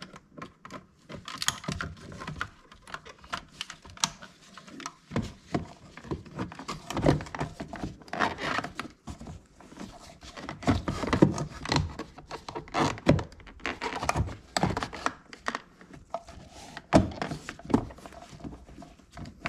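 Irregular clicks, knocks and light rattles of plastic interior trim parts and hand tools being handled and fitted while a Ford Fusion's front door panel is reassembled, with a few sharper knocks among them.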